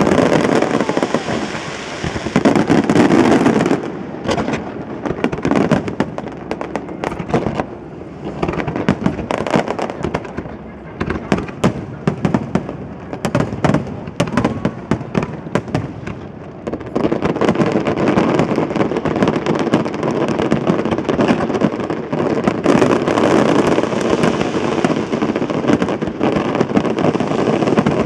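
Aerial fireworks display: shells bursting in quick succession with crackling, thickening into a near-continuous barrage about two-thirds of the way through.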